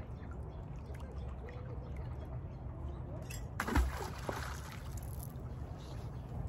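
A heavy fishing magnet hitting the lake water with one sharp splash about three and a half seconds in, followed by about a second of spattering water. A steady low rumble runs underneath.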